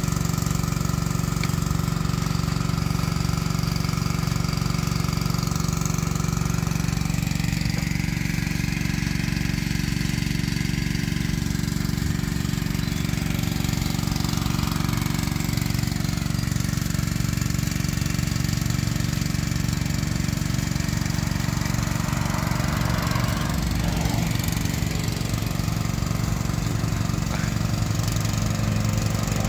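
Small engine running steadily at a constant speed, driving the water pump that feeds the hose used to wash freshly dug galangal.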